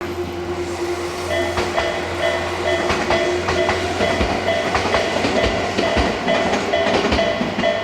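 Japanese level-crossing warning bell starting about a second in, a repeating electronic ding at roughly two strokes a second, over a train running with a steady low hum and the clack of its wheels over rail joints.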